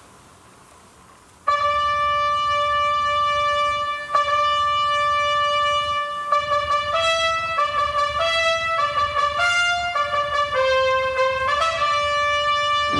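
Live orchestral music: after a brief hush, trumpets enter suddenly about a second and a half in with bright held notes, then step through a melody in shorter notes.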